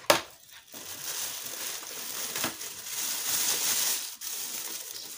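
Thin clear plastic bag crinkling and rustling steadily as it is handled and pulled off a boxed welding machine. A single sharp click right at the start.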